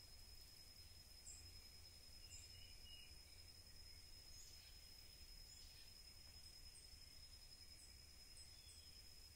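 Near silence: faint outdoor ambience with a steady high-pitched whine and scattered faint, short bird chirps, over a low rumble.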